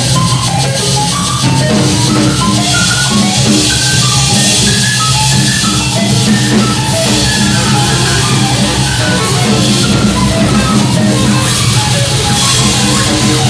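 Loud live noise music: a drum kit with a constant cymbal wash over a steady low electronic drone, with short pitched blips skittering up and down above it.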